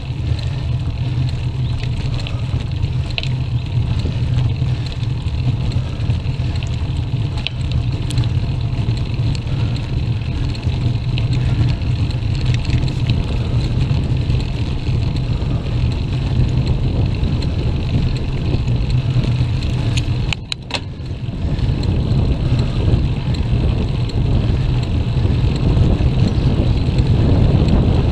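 Steady low rumble of wind buffeting the microphone of a camera on a road bike while riding uphill, with road noise from the tyres mixed in. It drops away briefly about twenty seconds in, then returns a little louder.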